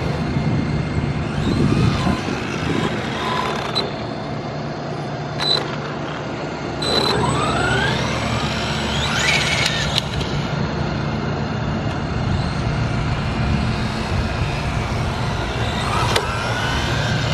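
Brushless motor and drivetrain of an Arrma Vendetta 3S BLX radio-controlled car whining as it speeds up and slows down, running a stock 17-tooth pinion on a half-charged 3S battery. The whine rises and falls in pitch over several passes, the strongest sweep about halfway through, over a steady low hum.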